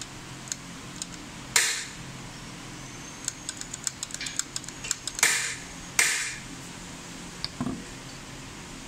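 Rapid light clicking from the mechanism of a Newlong hand-held bag-closing sewing machine being handled during servicing. Three short, sharp hissing bursts stand out, about 1.5 s in and twice more near the middle, over a steady low hum.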